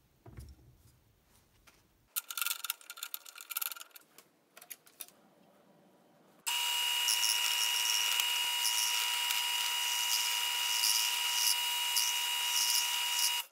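Wood lathe running with a steady motor whine while a hand-held turning tool cuts a spinning wood blank, a hiss of cutting as shavings come off. The lathe sound starts abruptly about six seconds in, after a few seconds of faint, broken scraping.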